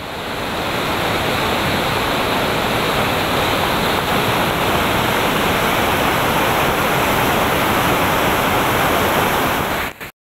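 Swollen river in full flood: a loud, steady rush of turbulent floodwater churning and foaming through rapids. It fades in over the first second and breaks off briefly near the end.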